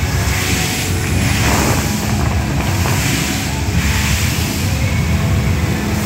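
Music from a musical fountain show playing loudly with a heavy low rumble, over the rushing hiss of water jets spraying up and falling back into the pool.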